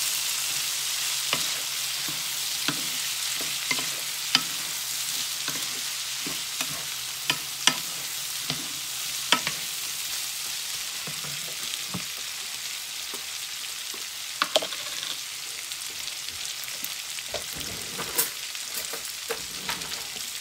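Green beans and ground pork sizzling in a frying pan while a wooden spatula stirs them, clacking against the pan every second or two. The sizzle grows slowly quieter.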